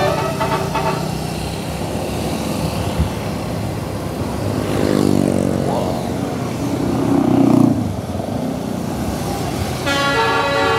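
Road traffic going past, with one vehicle's engine rising in pitch as it passes about five seconds in and a louder low engine note a couple of seconds later. Near the end a bus's multi-tone telolet horn starts playing.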